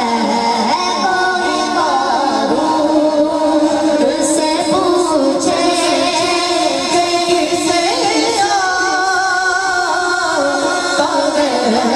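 A boy's high voice singing an Urdu naat, with long wavering held notes, amplified through a microphone and sound system.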